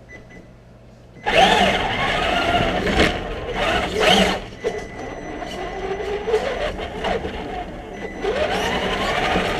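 Traxxas remote-control car's electric motor whining up in pitch as the car accelerates, with rattling drivetrain and tyre noise picked up by a camera mounted on the car. It starts suddenly about a second in, with a couple of sharp knocks in the middle and a second speed-up near the end.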